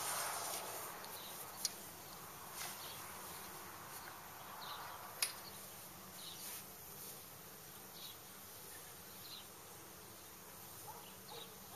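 Faint buzzing of a flying insect, with two sharp clicks about a second and a half and five seconds in from the metal awning poles being handled.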